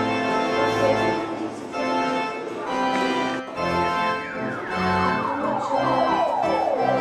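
Organ music playing held, sustained chords. From about four seconds in, quick descending runs of notes sweep down over the held chords.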